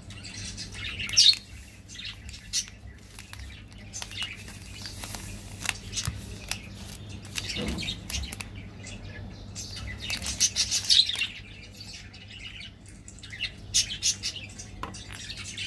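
Plastic candy wrappers crinkling and crackling as they are handled and torn open, in short irregular bursts, loudest about ten to eleven seconds in.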